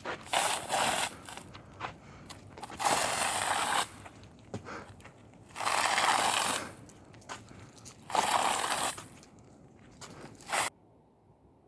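A person snoring loudly: four long, noisy snores about two and a half seconds apart, then a short fifth one that cuts off suddenly near the end.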